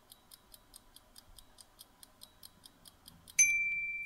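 Quiz countdown-timer sound effect: a faint clock-like ticking at about four ticks a second. Near the end the ticking stops and a single loud ding sounds, marking time up, and rings out as it fades.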